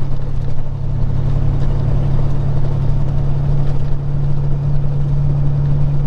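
Peterbilt 379 semi truck's diesel engine and road noise heard inside the cab while driving: a steady low drone that does not change.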